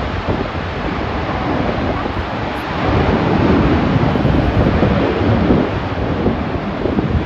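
Several F/A-18 Super Hornet jets taking off at full power, a dense, rushing jet roar that swells about three seconds in as the jets roll down the runway and lift off.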